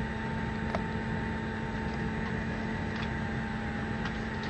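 Steady airliner cabin noise: a constant rushing drone with a low hum running through it, and a few faint clicks.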